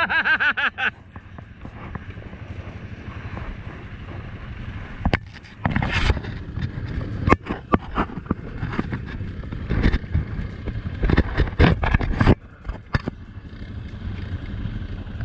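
ATV engines idling with a low, steady hum. The hum is broken several times by louder bursts of noise and sharp knocks on the microphone.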